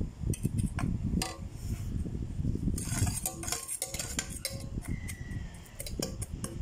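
Metal spatula scraping and clinking against the inside of a stainless steel pot as dry grape gulaman powder is pushed around, with repeated sharp clicks and a longer scrape about three seconds in.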